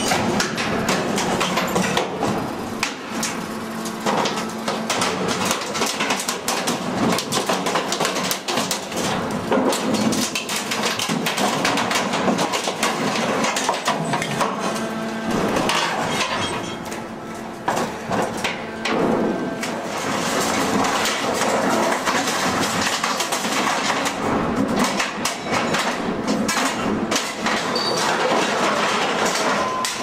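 Danieli Henschel 1250-ton scrap shear baler with lateral precompression crushing scrap metal in its box: loud, continuous clanking and crunching of metal, over a steady machine hum.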